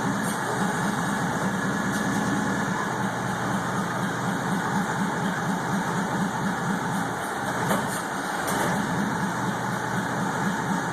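Toyota forklift engine idling steadily, freshly started, with an even fast pulsing beat.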